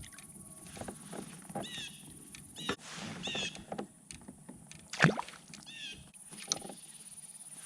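Small boat on the water: light irregular knocks and sloshing, with a sharp knock about five seconds in as the loudest sound, and several short chirps in between.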